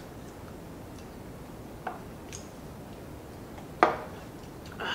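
A few faint clicks in a quiet room, then one sharp knock shortly before the end as a small drinking glass is set down on the table.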